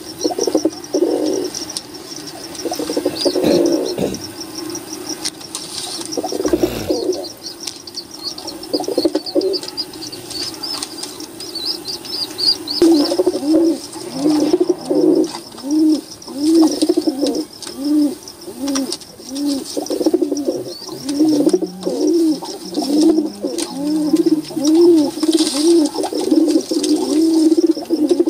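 Domestic pigeons cooing, a rhythmic run of coos about once a second that grows steadier about halfway through.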